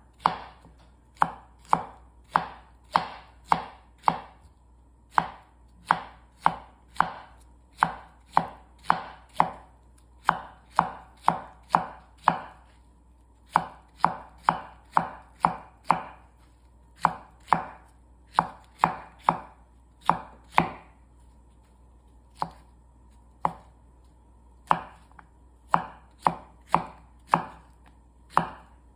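Chef's knife cutting Korean zucchini into matchsticks on a wooden cutting board: a steady run of knife strikes on the board, about two cuts a second, broken by a couple of short pauses.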